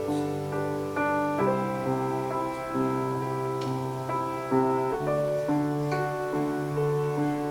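Keyboard playing slow, sustained chords with a piano sound, the chord changing every second or so.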